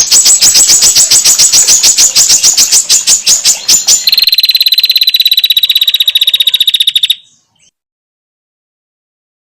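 Female prinias (prenjak) giving their rapid, metallic ticking trill: one bird's series of about seven ticks a second, then a second, faster series of about twelve a second at a different pitch. It cuts off suddenly about seven seconds in.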